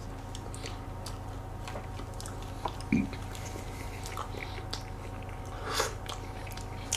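Soft cake being chewed and eaten close to the microphone: quiet wet mouth sounds and small clicks of a fork or spoon. There is a short low thump about three seconds in, over a faint steady hum.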